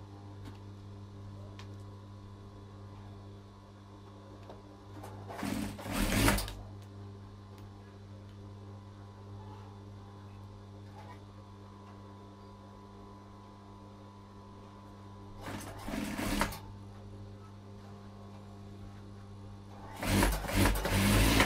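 Industrial single-needle sewing machine stitching along a zipper on a pillow cover in three short runs of about a second each, around five, fifteen and twenty seconds in, over a steady electric hum.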